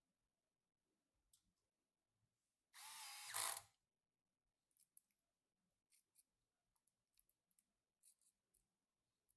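A small power screwdriver runs with a whine for about a second, a few seconds in, followed by scattered faint light clicks.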